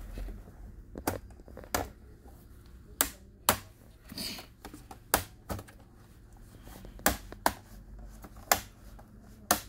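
About ten sharp plastic clicks at irregular intervals as an HP 255 G3 laptop keyboard is pressed and pried along its top edge to release its retaining latches, with a short scrape near the middle.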